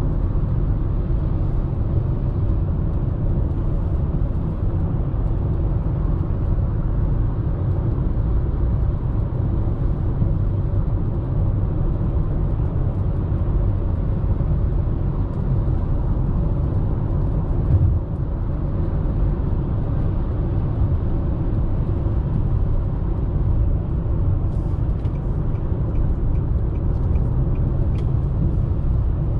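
Steady road and wind noise inside the cabin of a Nissan Sylphy at highway speed, mostly a low tyre rumble. There is a single bump a little past halfway and a run of faint, evenly spaced ticks near the end.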